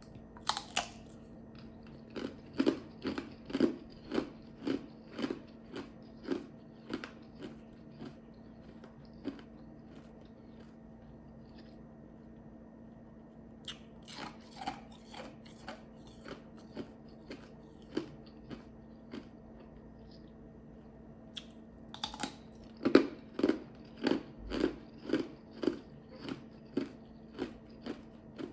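Ice chips crunching as they are bitten and chewed, about two crunches a second, in three spells with short pauses between; each spell starts with a louder bite.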